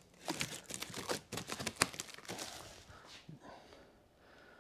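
Plastic stretch wrap crinkling and crackling as it is handled around a cardboard box on a pallet, for about two seconds, then dying away to faint rustles.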